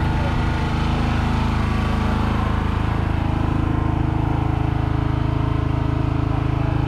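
An engine idling steadily, an even low hum with a fine regular pulse.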